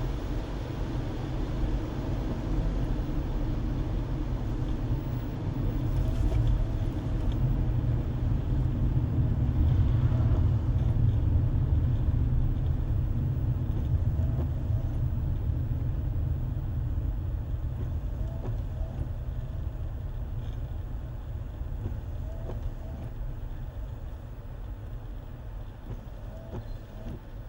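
Road and engine noise of a moving car, a steady low rumble heard from the car, swelling to its loudest about ten seconds in and then slowly dying down.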